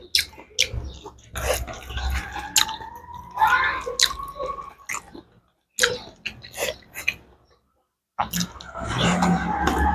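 Close-up eating sounds: wet chewing, biting and lip-smacking clicks, broken by two short silences. A faint, slowly rising tone runs behind.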